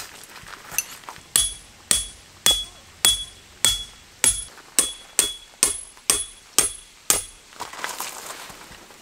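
A steady run of about a dozen hammer blows, roughly two a second, each with a short metallic ring: a metal tent peg being driven into the ground.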